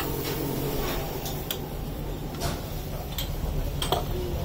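Hot milky tea frothing and boiling over in a tandoor-heated clay cup (kulhad) set in a brass bowl, with scattered crackling pops over a steady low hum.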